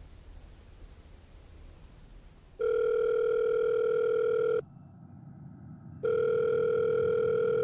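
Telephone ringback tone on a line as a call is placed: two steady buzzy beeps about two seconds long each, with a short pause between them, after a couple of seconds of faint hiss.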